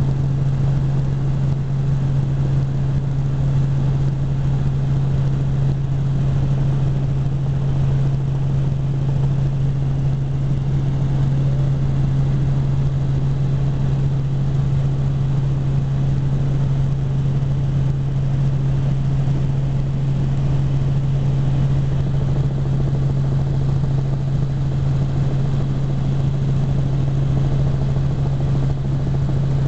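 Helicopter in flight: the steady drone of its engine and rotor, with one strong low hum over a rushing noise.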